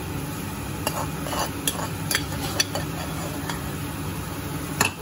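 A spatula stirring fried paneer cubes into a simmering tomato masala in a metal kadai, with a steady sizzle and a few sharp clicks where the spatula knocks against the pan.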